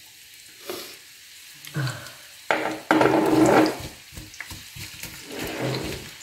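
Sliced onion scraped from a glass bowl with a silicone spatula into hot oil in a frying pan, sizzling, with a sudden loud burst about two and a half seconds in that lasts about a second. The onion is then stirred around the pan with the spatula.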